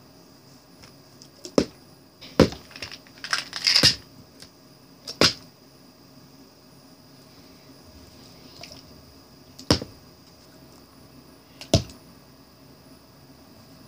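Small plastic pill and vitamin bottles knocking and clattering as they are flipped, stacked and toppled onto a hardback book and carpet. A run of sharp knocks comes in the first few seconds, then single knocks further apart.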